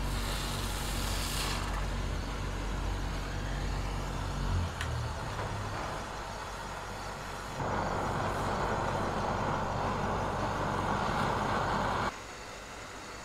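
Soldering torch flame hissing steadily on silver filigree, starting about halfway through and cutting off suddenly near the end. Before it, a low steady hum.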